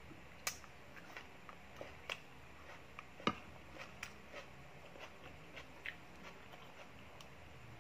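Eating by hand: scattered soft clicks and smacks of chewing, with fingers picking at rice and tearing fish on a plate. One sharper click comes about three seconds in.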